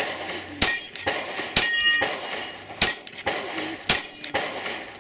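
About four gunshots roughly a second apart, each followed by the high metallic ring of a struck steel target.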